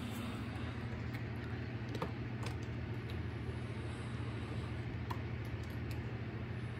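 Steady low hum and rush of air from a running ceiling fan, with a few faint clicks scattered through it.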